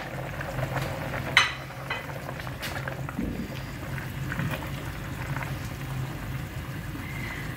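Pot of thick carrot-and-milk gajrela bubbling on the boil while a plastic spatula stirs through it, with scattered small scrapes and clicks and one sharp knock about a second and a half in, over a steady low hum.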